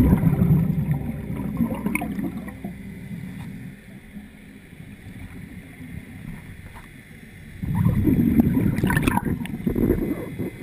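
Scuba diver's exhaled bubbles gurgling and rumbling underwater, heard through a camera housing: one loud burst at the start, a quieter stretch, and a second burst near the end.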